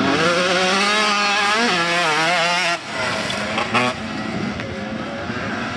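Dirt bike engine revving, its pitch rising and falling rapidly as the throttle is worked. It breaks off sharply almost three seconds in, and a quieter, steadier dirt bike engine note follows.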